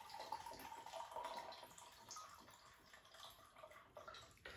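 Faint trickle of white rum poured from a bottle into a small cup, strongest in the first second or so, then dying away.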